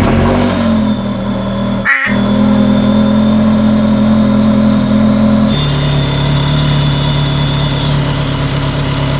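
Ferrari 360 Spider's V8 running at a steady idle just after starting, with a thin high whistle over it; there is a brief break about two seconds in, and the idle steps lower about five and a half seconds in. The whistle is the intake vacuum leak, still there after new injector O-rings and tightened manifold bolts, which the owners put down to a failed intake manifold gasket.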